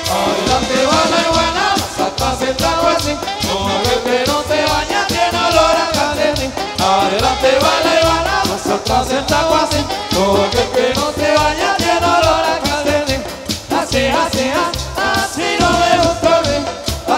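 A live dance band playing Latin-style dance music with a steady, driving beat and a melody line on top.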